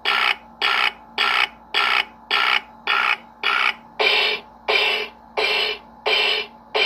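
Bop It Extreme toy's speaker playing a run of about a dozen evenly spaced electronic beeps, a little under two a second, as it counts out its stored high score.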